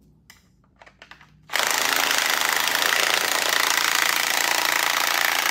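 Cordless power driver starting about a second and a half in and running steadily at full speed, driving a clamp bolt as the sections of a dry sump oil tank are fastened back together. Faint handling clicks come before it.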